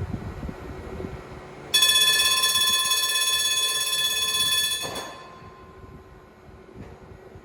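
A tram's warning bell ringing steadily for about three seconds, starting suddenly about two seconds in and stopping abruptly; quieter rumble before and after.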